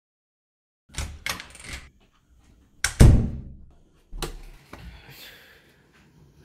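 A few knocks and thuds: three quick ones about a second in, a louder, deep thud about three seconds in, and another soon after.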